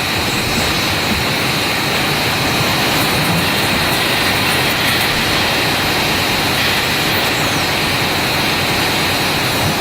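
Designed monster-machine sound effect: a steady jet-like rushing noise with a high, constant whine over it.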